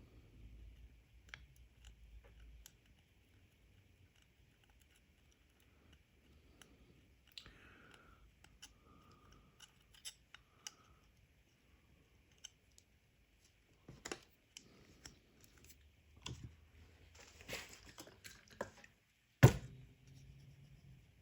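Quiet hand work at a bench: scattered small clicks, taps and short scrapes of a tool and small parts being handled, a busier run of scraping near the end, then one loud knock.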